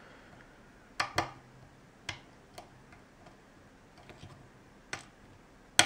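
Pins clicking inside an ASSA oval lock cylinder as it is picked: about eight sharp, unevenly spaced clicks, the loudest near the end. The custom pins give a lot of clicking and slight counter-rotation on nearly every pin.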